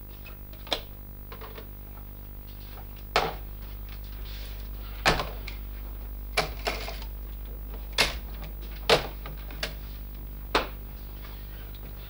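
About nine sharp knocks and clicks at irregular intervals as objects are handled and set down at a wooden sideboard, with a machine case on it being opened and worked at. A steady low electrical hum runs underneath.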